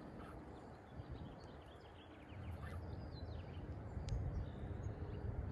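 Wind rumbling on the microphone, growing stronger after about two seconds, with faint bird chirps over it and a single sharp click about four seconds in.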